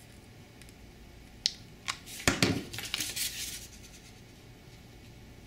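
Handling noise at a workbench: a couple of light clicks, then about two seconds in a short cluster of knocks and rattles as a hot glue gun and foam wing parts are moved and set against the wooden bench.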